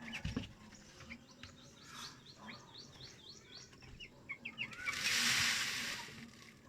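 Broiler chicks peeping in short, repeated high chirps. About five seconds in, a hissing rush of noise lasts about a second and a half.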